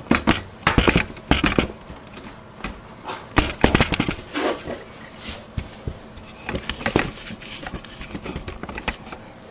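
Handling noise: irregular clicks, knocks and rubbing as equipment is moved about by hand, loudest around the fourth second.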